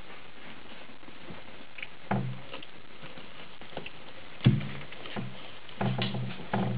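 Boxer puppies scuffling and tumbling in a wooden whelping box, with sudden knocks and bumps against the box, the loudest about four and a half seconds in and a run of several more near the end.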